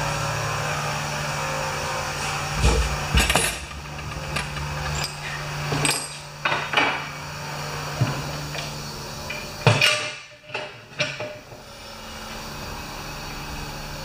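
Irregular sharp knocks and clanks of tools and mower parts being handled, about a dozen strikes, over a steady low hum that drops out about ten seconds in.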